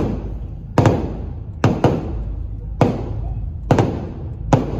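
Firecrackers exploding outside a car, heard from inside the cabin: sharp bangs about once a second, some in quick pairs.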